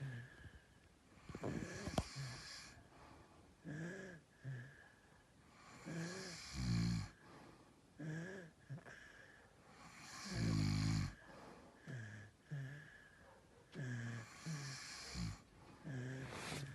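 A father and son snoring in their sleep: short snores come every second or two, and two much deeper, louder, longer snores fall near the middle.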